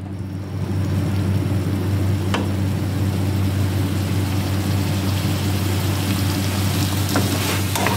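Okra and masala sizzling in hot oil in a wok over a raised gas flame, a steady sizzle that swells in the first second, over a steady low hum. A single light tap sounds about two seconds in.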